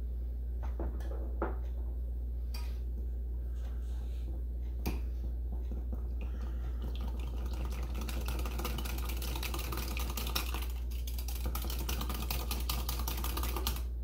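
Wire whisk beating buttermilk and molasses in a glass measuring cup: rapid, continuous clicking of the wires against the glass, starting about six seconds in. Before it come a few scattered knocks, all over a steady low hum.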